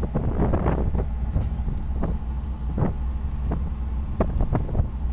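Wind buffeting the microphone on the deck of a ship underway, over a steady low hum from the vessel's engine, with a string of short gusty thumps in the second half.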